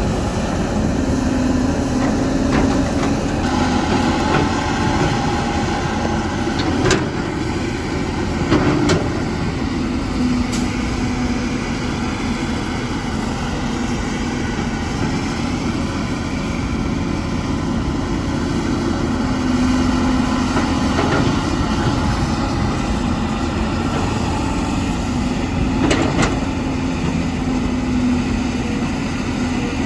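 Cat 320 hydraulic excavator's diesel engine working under load, its note rising and easing every several seconds as the hydraulics work, with a few sharp knocks.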